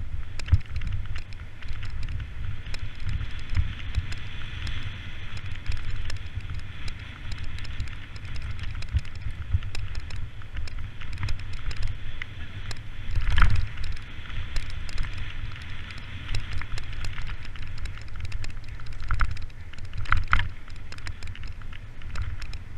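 Mountain bike riding fast over a bumpy grass track, heard from an action camera on the rider: wind on the microphone, a constant low rumble from the ground, and the bike's frequent rattles and clicks, with a harder knock about 13 seconds in.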